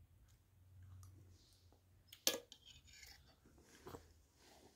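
Steel spoon clinking against a stainless steel bowl, one sharp clink about two seconds in and a softer one near four seconds, with little else between.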